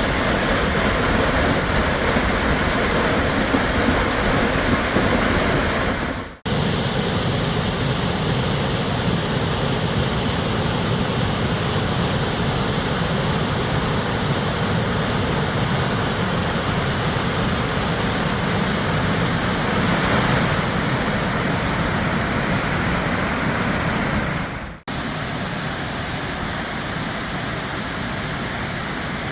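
Waterfall and creek water rushing, a steady dense roar, in separate clips with brief abrupt breaks about six seconds in and near the end.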